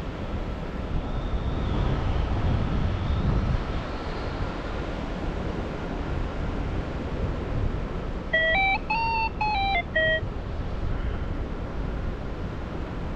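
Wind rushing over the microphone in flight. About eight seconds in, a short run of electronic beeps steps up in pitch and then back down, lasting about two seconds.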